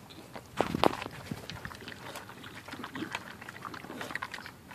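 Bulldog eating dry kibble from a metal bowl: a quick, irregular run of crunches and clicks, with a louder burst just under a second in.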